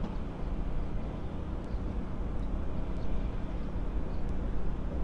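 Steady low outdoor background rumble, with a few faint short high ticks scattered through it.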